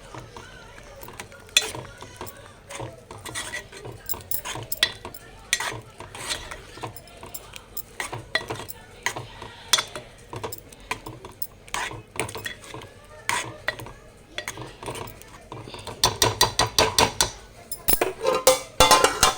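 A spoon stirring and scraping against a pot of cooked dal, with irregular clinks. Near the end the clinks quicken into rapid runs.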